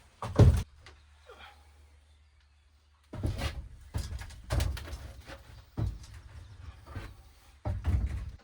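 Irregular knocks and thuds: one loud knock at the start, a short pause, then a run of uneven knocks from about three seconds in.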